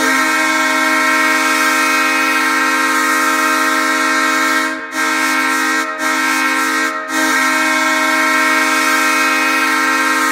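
Hockey arena goal horn sounding one long, steady blast, with three brief dips in level around the middle.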